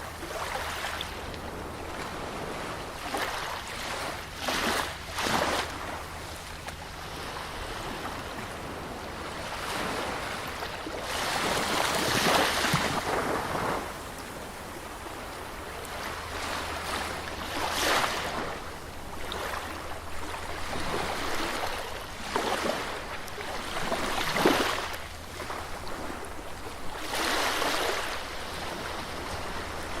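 Sea waves breaking on a beach, surging and washing back in swells every few seconds.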